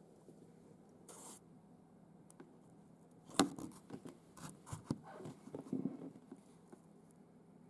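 A cat scratching and pawing at a sliding door. A sharp knock comes about three and a half seconds in, followed by a few seconds of irregular scratching, rubbing and light clicks.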